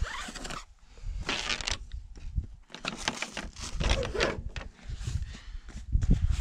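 Irregular rustling and scraping of leather work gloves handling a rope, with a glove being pulled off near the end.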